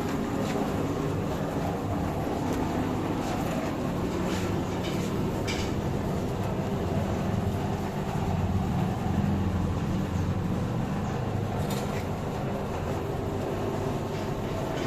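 Sinmag SM-307 dough moulder running: a steady motor and roller hum with a few light clicks.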